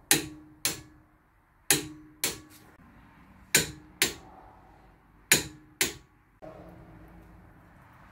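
Click-type torque wrench breaking over at its 74 ft-lb setting on the front brake caliper bracket bolts. Four pairs of sharp metallic clicks, each with a short ring, come about two seconds apart.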